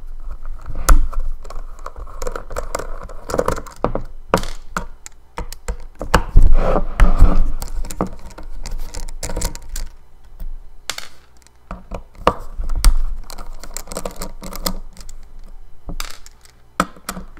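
Small T9 Torx screwdriver backing screws out of a hard drive's case: irregular clicks, taps and scraping of the driver tip and the drive being handled.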